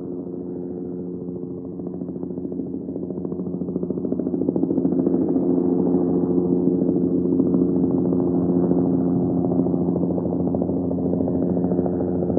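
Helicopter in flight, its rotor and engine making a steady pulsing drone that grows louder over the first few seconds, then holds steady.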